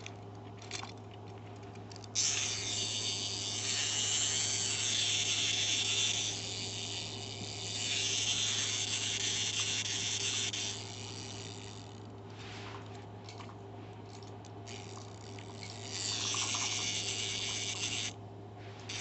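Clockwork spring motor and plastic gears of a wind-up robot dog toy whirring as it runs. A long run starts suddenly about two seconds in and stops near ten seconds; a few clicks follow, then a second, shorter run comes near the end.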